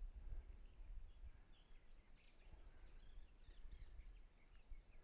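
Faint, scattered bird chirps and short calls over a low rumble.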